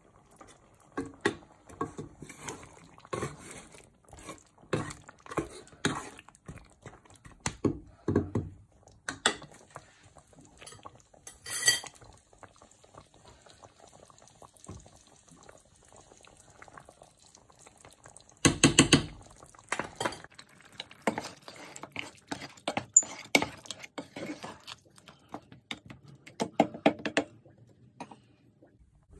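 A spoon knocking and scraping against a cooking pot as a thick mutton curry is stirred: a run of irregular clinks, with a denser clatter about two-thirds of the way through.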